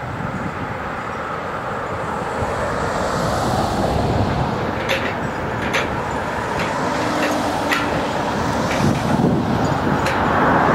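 Norfolk Southern diesel freight locomotives approaching, their engines and wheels making a steady rumble that grows louder, with a few sharp clicks from the wheels on the track.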